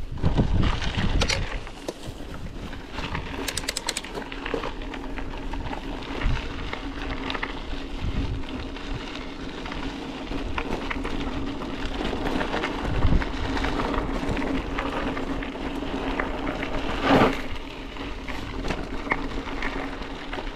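Bicycle rolling over a gravel track: the tyres crunch and rumble on loose stones, with occasional knocks and rattles as the bike goes over bumps, the loudest about a second in and near the end. A steady low hum runs underneath.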